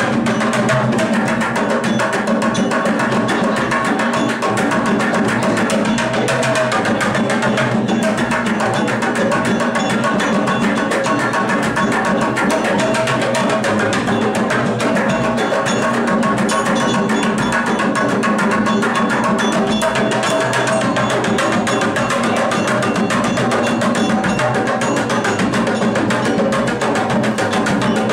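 Live percussion played with sticks on large plastic water-cooler jugs: a busy, steady stream of hits that keeps going without a break.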